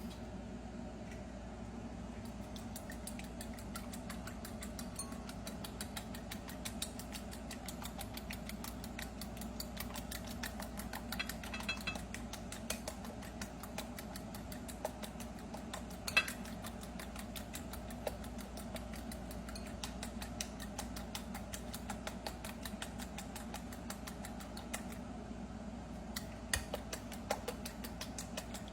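A steady fan-like hum, with scattered light clicks and clinks of kitchen utensils; the sharpest clink comes about halfway through.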